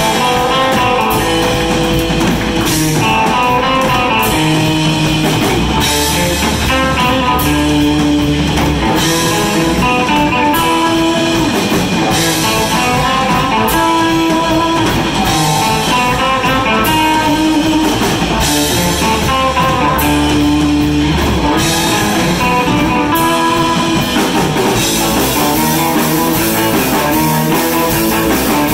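Live surf-rock band playing an instrumental passage: an electric guitar melody over a drum kit and the deep notes of a contrabass balalaika, loud and without vocals.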